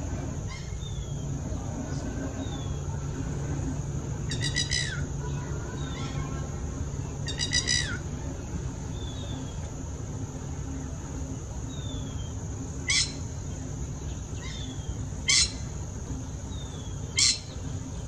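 Red-wattled lapwing calling with loud, strident cries: two longer runs of quick notes about four and seven seconds in, then three short sharp single calls about two seconds apart near the end. Faint, short falling chirps from another bird and a steady high insect-like hiss sit underneath.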